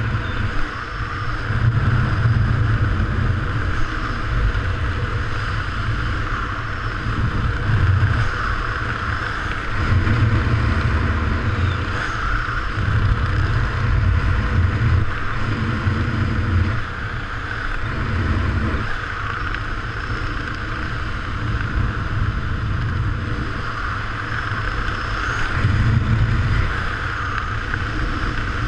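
Wind rushing over a helmet-mounted camera's microphone during a descent under an open parachute: a steady rush with a low rumble that swells and eases every few seconds.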